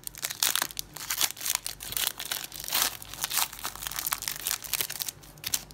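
Foil wrapper of a Panini Prizm football card pack crinkling and tearing as it is pulled open by hand, in a run of rapid irregular crackles that thins out near the end.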